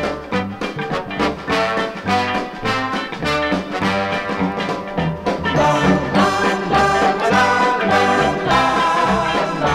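Background music: an up-tempo brass band piece with trombones and trumpets over a steady bass beat, getting fuller about halfway through.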